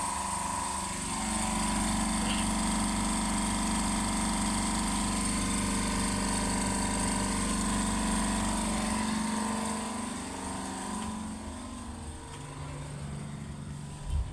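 Small air compressor running with a steady motor hum as it fills an air-horn tank; it gets louder about a second in and dies away about ten seconds in, leaving a quieter, lower hum. A short thump comes near the end.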